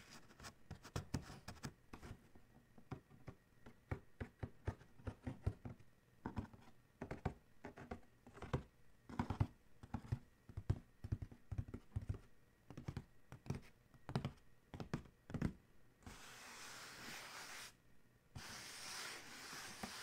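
Fingertips tapping quickly and irregularly on the lid of a cardboard shoebox. Near the end the tapping gives way to scratching across the cardboard, in two strokes of about two seconds each.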